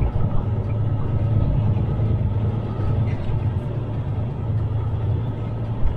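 Semi-truck's diesel engine droning steadily at cruising speed, heard inside the cab, with tyre noise from the wet road.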